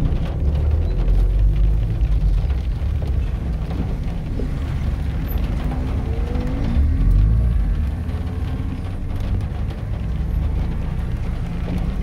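Car driving along a road: a steady low rumble of road and engine noise.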